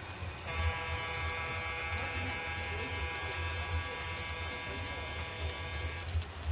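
A steady electric buzz that starts about half a second in and cuts off near the end, over a low, steady hum.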